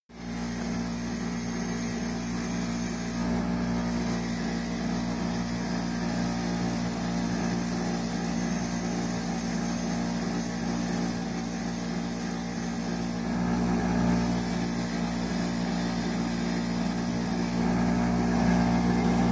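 Bench grinder running with a wire wheel brushing an engine valve held against it. A steady motor hum sits under the hiss of the wire bristles.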